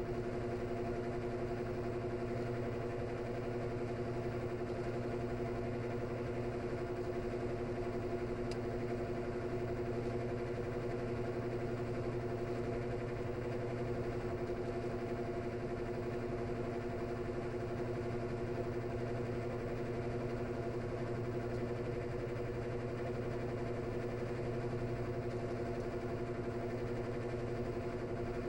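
Washing machine drain pump running with a steady, even hum.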